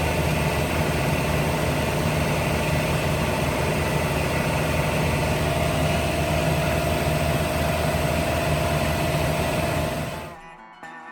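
Welding arc on a steel bracket notch, a loud, steady, crackling hiss with a low hum that cuts off suddenly about ten seconds in.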